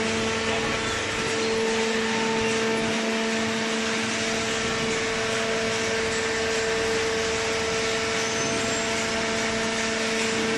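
Hydraulic carton box baler's electric motor and hydraulic pump running steadily: a constant hum with a steady whine over it.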